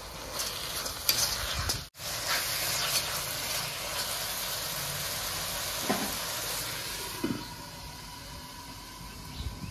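Onion-and-spice masala sizzling in hot oil in a pan while it is stirred, with a few clicks of the spatula against the pan in the first couple of seconds.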